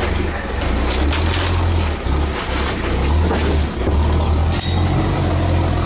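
Off-road 4x4 truck driving slowly over a rough dirt track: a low, steady engine drone, heard from inside the cab, with scattered knocks and rattles from the body.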